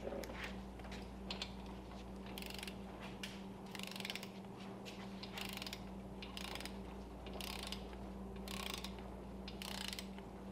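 Torque wrench ratcheting on the main-cap bolts of a GM LS 5.3 V8 block as they are run down to 15 ft-lb in sequence. Short bursts of ratchet clicking come about once a second from about two seconds in, over a steady low hum.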